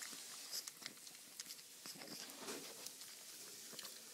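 Pug chewing and mouthing a sugar-coated gummy candy stick held out to it: faint, scattered clicks and wet smacks.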